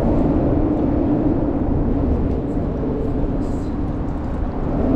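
A steady low rumble with a droning engine-like hum.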